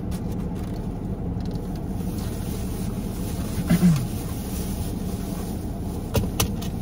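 Steady low hum of a car idling, heard inside the cabin. About four seconds in comes a short falling voice-like sound, and near the end a couple of sharp plastic-bag crinkles.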